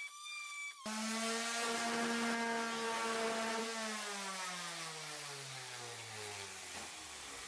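Corded rotary sander with a 40-grit disc: a high whine cuts off about a second in, giving way to a lower steady hum that, after about three seconds, slides steadily down in pitch as the motor winds down.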